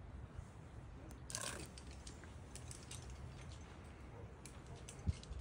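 Light clicks and rattles of belay gear as rope is paid out to a lead climber, with a brief rustle about a second in and a single sharp thump near the end.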